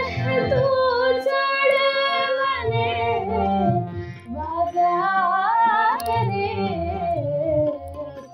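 A female voice singing a Gujarati ghazal in long, ornamented phrases that glide between notes, over a low accompaniment.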